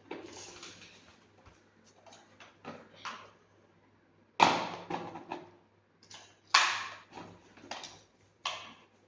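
Handling noises as a toy RC car's battery pack is fitted and plugged in: a series of sharp plastic clicks and knocks with rustling, the loudest about four and a half and six and a half seconds in.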